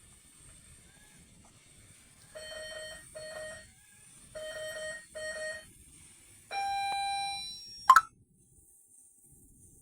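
Electronic beeping: two pairs of short double beeps, then one longer, higher beep lasting about a second, followed by a sharp click. A faint high whine sits underneath and stops with the click.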